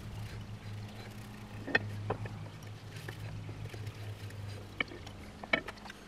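A few light clicks and taps of a paintbrush and ceramic molds against a dish and a stone countertop while a coating is brushed into a bisque-fired clay mold, over a steady low hum.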